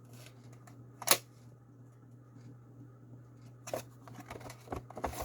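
Handling noises from a VHS tape and its packaging: one sharp click about a second in, then a run of rustles and small knocks near the end, over a steady low hum.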